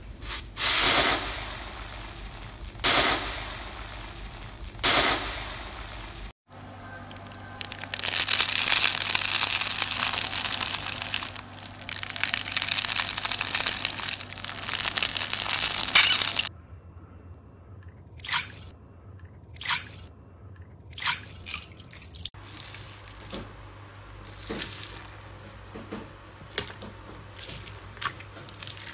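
Hands working several crunchy and wet slimes: three separate loud crunches as a grainy slime is pressed, then about ten seconds of continuous crackling as a crunchy slime is squeezed. After that come single sharp pops about a second apart, and smaller wet pops and squishes from a clear slime full of beads.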